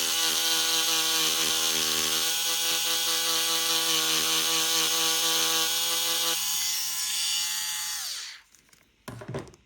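Small electric rotary tool running steadily while it abrades black paint off a metal lens mount. About eight seconds in it is switched off and its pitch falls as it spins down, followed by a brief knock.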